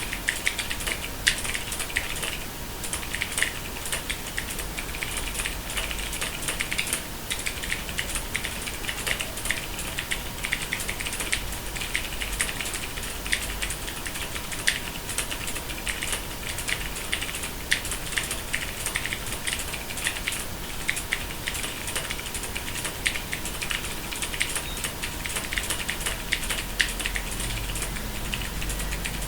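Mechanical keyboard with Cherry MX Silver Speed linear switches being typed on fast and without pause: a dense, even stream of keystroke clacks.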